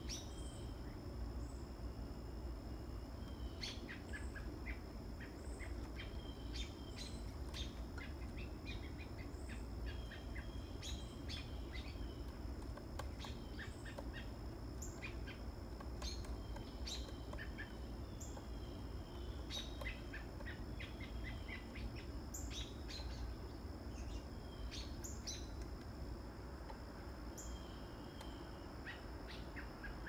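Pileated woodpecker pecking at a tree trunk: irregular sharp knocks in short loose clusters with pauses between, over other birds chirping and a steady high insect drone.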